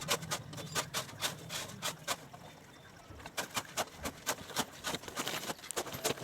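A quick, irregular series of sharp clicks and taps.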